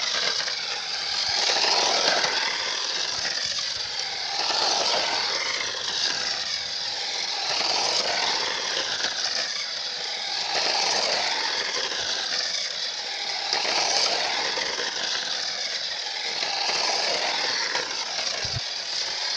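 Toy RC car's small electric motor and plastic wheels running over rough, cracked asphalt with a rattling hiss. It swells and fades about every three seconds as the car circles past again and again.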